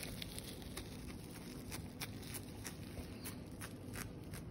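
Plastic bag of catnip crinkling faintly as a cat bites and claws at it: irregular small clicks and ticks, several a second.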